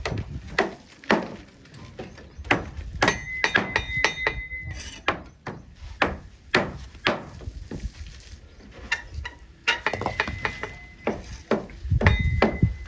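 Bricklaying work: irregular sharp taps and knocks of a mason's trowel on bricks, several a second at times. A few strikes ring briefly with a metallic tone.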